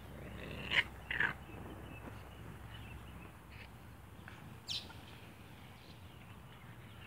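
A few short, high animal calls: two close together about a second in, and a rising one near five seconds.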